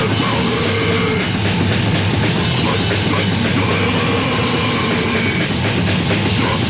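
Loud, dense heavy metal music from a 1987 band demo recording.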